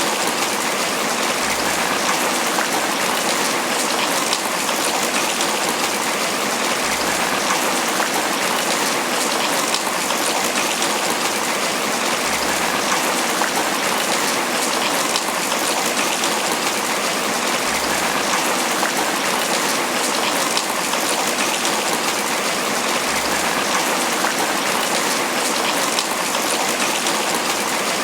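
Steady tropical rain falling on banana leaves.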